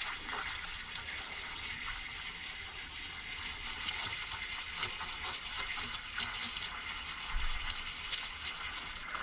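Espresso machine steam wand hissing steadily into a pitcher of milk as the milk is steamed, with clusters of sharp crackling clicks near the start and again from about four seconds in.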